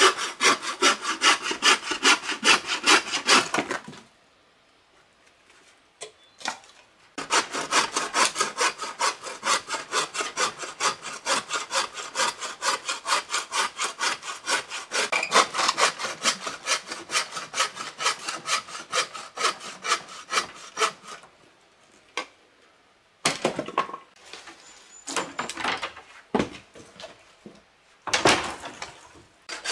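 Hand saw cutting through a dead branch in quick, even strokes, about four a second. It stops for a few seconds, then saws on steadily for about fourteen seconds, followed by a few shorter, uneven bursts near the end.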